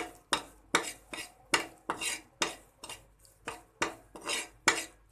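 A spoon scraping around a pan as it stirs flour roasting in ghee, in quick regular strokes, about two or three a second.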